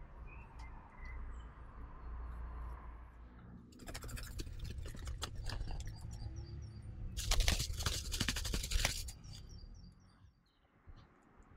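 Eurasian jay fledglings scrabbling and flapping their wings in a nest of twigs: a dense run of rustles and clicks from about four seconds in, loudest around seven to nine seconds, then dying away.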